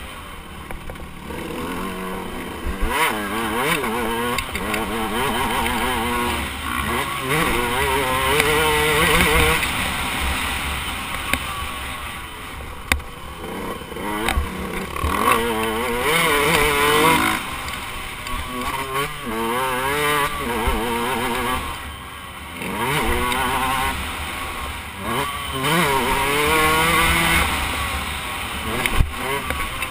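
KTM 125 two-stroke dirt bike engine heard from a camera mounted on the bike, its revs climbing again and again through the gears and dropping off between, with dips around the corners.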